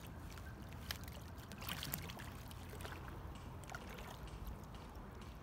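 A hooked fish thrashing and swirling at the water's surface: faint splashes and swishes of water, with a few sharp ticks.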